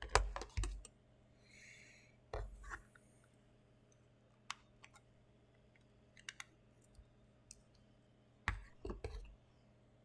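Plastic figurine parts and packaging being handled: short clusters of clicks and rustles at the start, a little over two seconds in and near the end, with scattered single ticks between.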